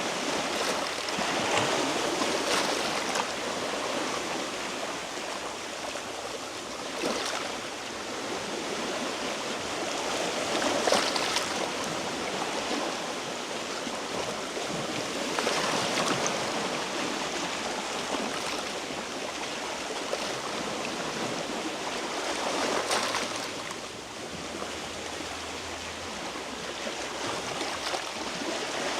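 Sea waves washing and splashing against shoreline rocks, swelling every few seconds.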